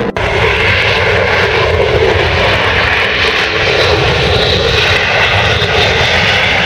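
Military jet aircraft's engines running loud and steady, with a brief dropout right at the start.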